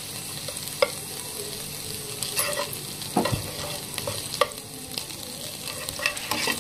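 Butter sizzling as it melts into masala in a hot steel pan, stirred with a flat metal spatula that scrapes and clinks against the pan bottom now and then.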